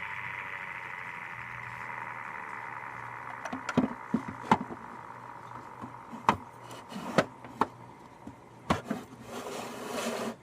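Whine of a vintage PC's fan and drives slowly fading, consistent with the machine spinning down, then a run of sharp clicks and knocks with a short rustle near the end.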